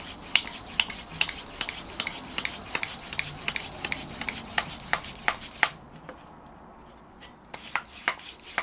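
Silca Tattico bicycle mini pump worked by hand to inflate a flat tyre. Its strokes make short rasping clicks, about two to three a second, with a pause of about a second and a half past the middle.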